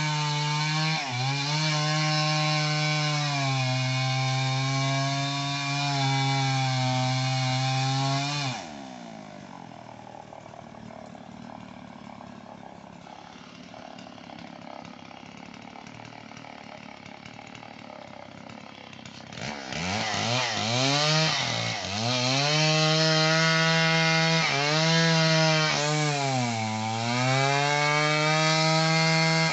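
Two-stroke chainsaw cutting albasia wood at high revs. About 8 seconds in it drops to idle for roughly ten seconds, then revs back up and runs at full speed again, its note sagging briefly a few times as it bogs under load. The saw is described as damaged.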